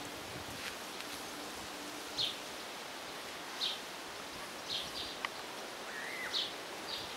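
Small birds chirping, short high chirps every second or so, with a brief bent call about 6 s in, over steady outdoor background hiss.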